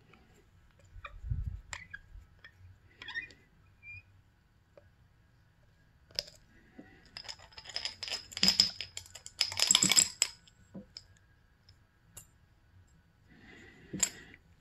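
Small metal throttle parts being handled: a metal rod, the end plug with its bearing and the throttle tube. Scattered light clicks, then a few seconds of scraping and clinking with a faint ringing about halfway through.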